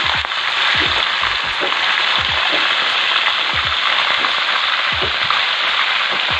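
Whole round scad (galunggong) deep-frying in a pot of hot oil: a loud, steady sizzle.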